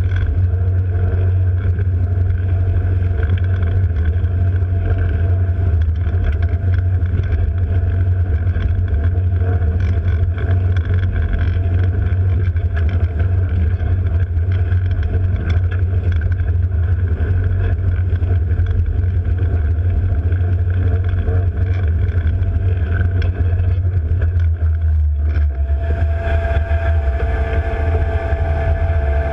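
Mersey-class all-weather lifeboat under way at speed: a steady low drone from its twin diesel engines, with water rushing along the hull. Near the end the sound changes, a clearer hum rising over the drone as the wake dies down and the boat slows.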